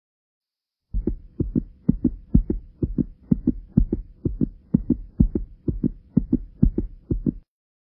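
Deep, low thumps in close pairs, like a heartbeat, about two pairs a second, with a faint steady hum beneath; they start suddenly about a second in and stop abruptly near the end.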